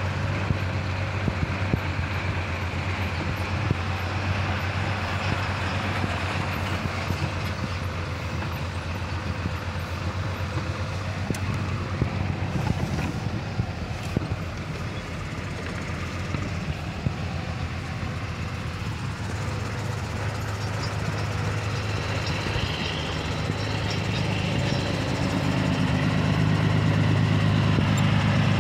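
Heavy diesel truck engine running steadily with road noise, heard from the cab while driving slowly. Near the end a diesel truck engine idling close by grows louder.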